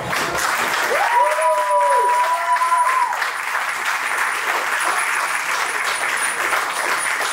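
Wedding guests applauding steadily. About a second in, a drawn-out cheer rises over the clapping for about two seconds.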